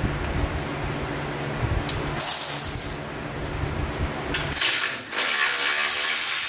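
Milwaukee M12 cordless electric ratchet whirring as it backs out a 12 mm bolt. There is a short burst about two seconds in, then a long steady run from about four and a half seconds on, with the bolt turning out freely rather than seized by rust.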